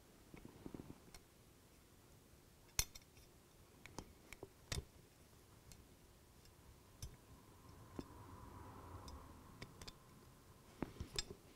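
Faint, scattered clicks and taps of small plastic parts on a model locomotive chassis being handled and pressed with the fingers while a part is worked into place.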